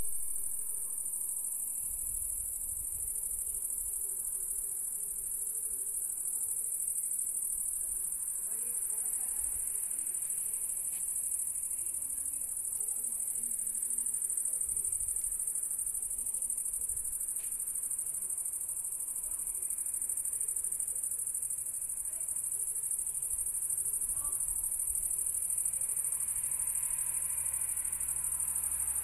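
A steady, high-pitched chorus of crickets, unbroken throughout.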